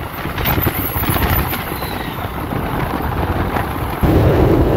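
A vehicle running along a road, with wind buffeting the microphone. The noise is a steady rumble that suddenly grows louder about four seconds in.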